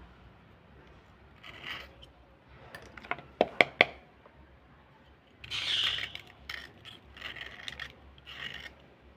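Slate pencil being rubbed and scraped by fingers and thumbnail in short, dry, gritty strokes as the powdery coating is cleaned off. A quick run of four sharp clicks comes about three and a half seconds in.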